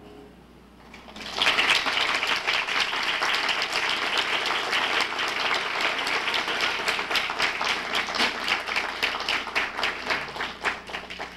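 A piano's last notes fade, and about a second later an audience breaks into applause, which thins to scattered claps near the end.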